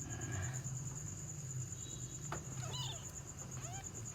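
Newborn kittens mewing: short, thin squeaks that rise and fall in pitch, a couple about two and a half seconds in and another near the end. Under them, a steady high pulsing buzz and a low hum.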